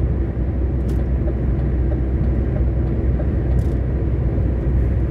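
Inside a lorry cab at cruising speed on a motorway: the diesel engine's steady low drone and the tyres' even road noise.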